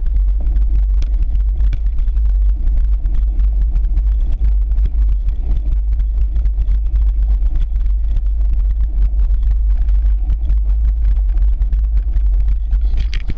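Cyclocross bike riding over bumpy grass, heard through a handlebar-mounted action camera: a loud, steady low rumble of wind and vibration on the microphone, with frequent small clicks and rattles from the bike.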